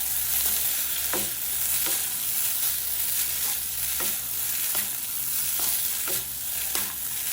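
Boiled noodles with chicken and sauce being stirred and tossed in a hot pan: a steady frying sizzle, with the utensil knocking against the pan about once a second.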